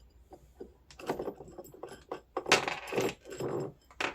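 Plastic and metal parts of a kids' ride-on's rear drive motor assembly clattering and knocking as it is lifted and handled. The clicks and knocks come irregularly, busiest in the middle, with one sharp click near the end.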